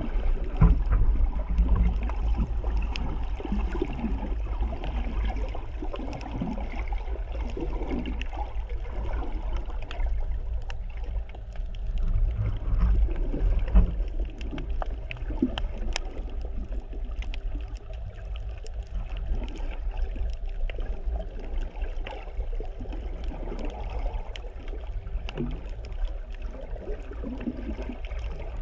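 Underwater sound heard through a GoPro's waterproof housing: a muffled, uneven low rumble of water moving around the case, with scattered faint clicks.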